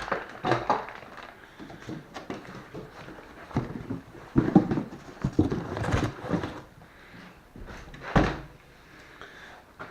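Packaging and parts being handled in a cardboard box: irregular rustling with scattered knocks and thumps, the loudest thump a little over eight seconds in.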